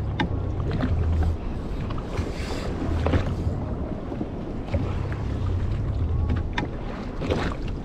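Wind buffeting the microphone and water slapping against a jet ski's hull, a steady low rumble that swells and fades every second or two. Scattered sharp clicks and knocks sound throughout.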